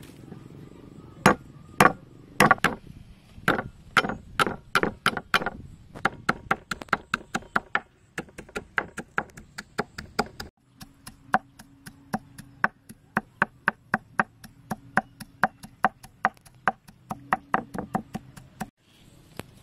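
Cleaver chopping ginger on a thick wooden chopping block. It starts as slower, heavier single strokes, about two a second, then turns into quicker, even mincing chops of three or four a second, and stops shortly before the end.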